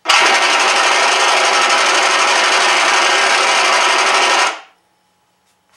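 Machine-gun firing sound effect from a Shockwave sound module, played through two 3-inch Aerosound speakers in a radio-control A-1H Skyraider model: one continuous burst of rapid fire, about four and a half seconds long, that starts suddenly and then stops.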